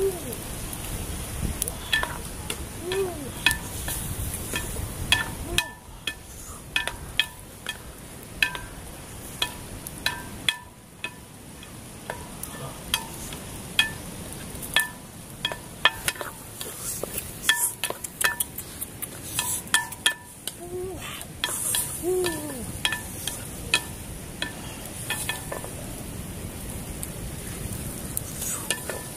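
Chicken pieces sizzling in a blackened metal pot over a wood fire, while a spoon stirs them and clinks against the pot many times, each clink ringing briefly.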